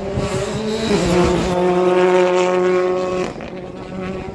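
Rally car engine at high revs as the car passes at speed. The pitch steps down about a second in, holds steady, then fades as the car pulls away near the end.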